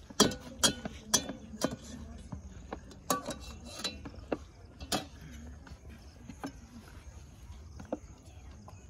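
Plastic plates and serving utensils knocking and clinking as food is dished out: a string of sharp clicks and clinks, several a second over the first five seconds and fewer after.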